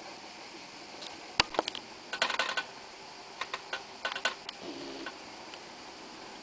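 Handling noise: irregular light clicks and rustles in two short clusters, as the small sketchbook and the camera are moved. They are heard over a steady faint background hiss.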